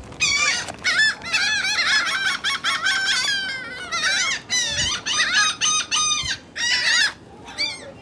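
A flock of laughing gulls calling excitedly as they crowd in to be fed, with many short rising-and-falling calls overlapping in quick succession. The calls thin out near the end.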